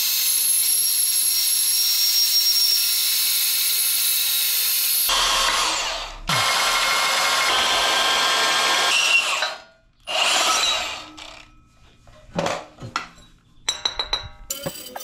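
Milwaukee cordless portable band saw cutting through rusty square steel tubing, running steadily for about nine seconds, then briefly once more about ten seconds in. A few knocks and a quick run of clicks follow near the end.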